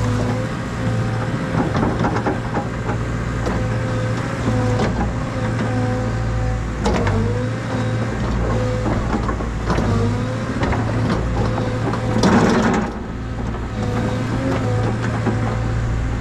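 Cat excavator's diesel engine running under load with its hydraulics working, a steady low hum with a wavering whine on top. Scattered knocks and crackles run through it, with a brief loud crackle about twelve seconds in.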